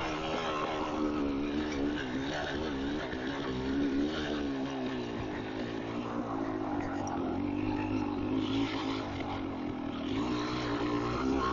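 Yamaha DT200R's two-stroke single-cylinder engine running at low revs while riding, its pitch rising and falling a little with the throttle.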